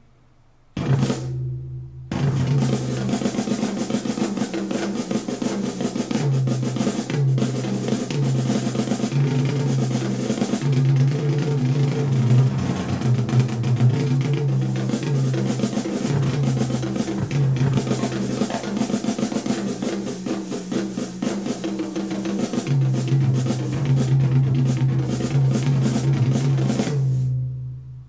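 Drum-kit music with a stepping bass line played back through a pair of Canton Karat 100 three-way closed-box compact speakers and picked up in the room. A short burst sounds about a second in, the music starts properly at two seconds and fades out near the end.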